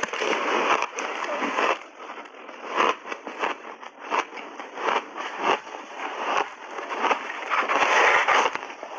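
Crushed, refrozen ice crunched and chewed with the mouth close to a clip-on microphone. There is dense crackling as the mouthful is taken, then sharp, uneven crunches as it is chewed, with another dense crunching stretch near the end.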